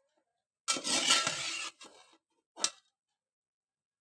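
A metal spoon scraping along a stainless steel bowl as it scoops boiled cauliflower florets, the bowl ringing faintly under it for about a second, followed by a fainter scrape and one short clink of metal on steel.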